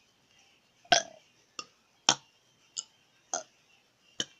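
A series of six short, sharp clicks at uneven intervals of roughly half a second to a second; the first, about a second in, is the loudest.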